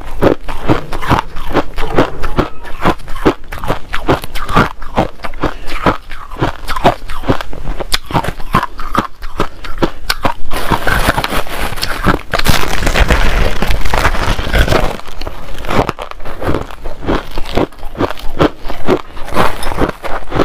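Crushed ice being bitten and chewed close to the microphone: a fast, uneven run of sharp crunches. About halfway through come a few seconds of denser, hissier crackling.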